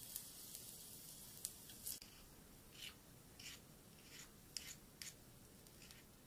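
A tiny metal utensil making an irregular string of short, faint scrapes and clicks against a miniature metal frying pan and a small cutting board, as diced ingredients are stirred and scraped into the pan.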